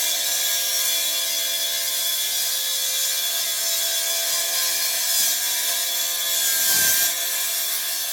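Stihl TSA 500 battery cut-off saw running with its disc cutting, a steady high hiss over a whining motor. It gets louder for a moment about seven seconds in, then eases off slightly.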